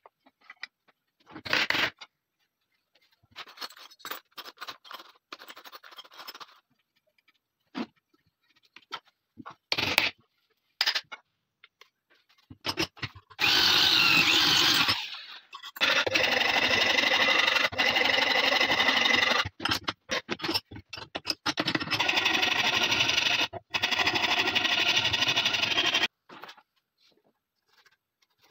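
Handheld electric drill running in several long spells, boring into a new wooden shotgun butt stock where it meets the metal action; it stops briefly a few times. Before it, scattered clicks and scrapes of metal gun parts being handled at the vise.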